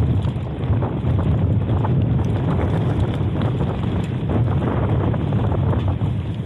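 Wind buffeting the microphone over the running noise of a mountain bike on a trail, with many small rattles and clicks.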